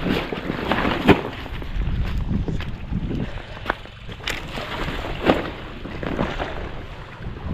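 Footsteps crunching over dry crop stubble and soil clods, a few irregular crunches about a second apart, with wind rumbling on the microphone.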